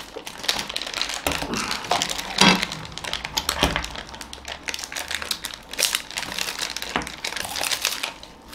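Plastic ice cream wrappers crinkling and rustling in irregular bursts as they are squeezed and handled, with a few short mouth sounds of ice cream being eaten.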